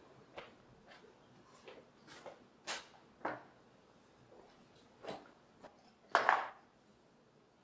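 A string of light knocks and taps as wooden pieces and tools are handled and set down on a wooden workbench, with a longer, louder clatter about six seconds in.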